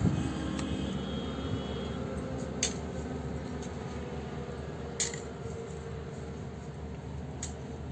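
Steady low hum of construction-site background, broken by three short sharp taps about two and a half seconds apart.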